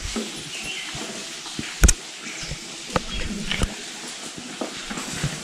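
Faint voices with a few sharp knocks, the loudest about two seconds in, inside a rock cave.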